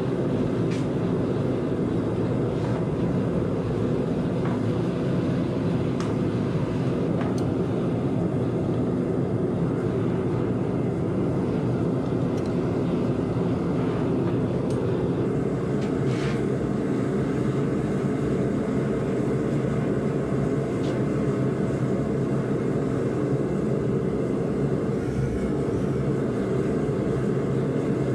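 Propane gas forge burning, a loud steady drone that does not change, with a few faint metallic ticks over it.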